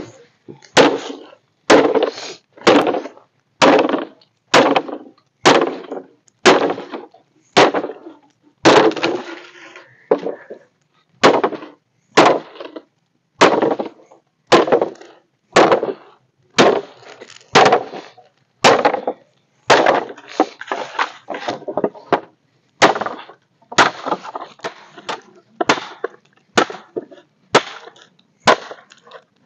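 A blade chopping into a wooden pole, sharp blows about one a second, with a short break about ten seconds in.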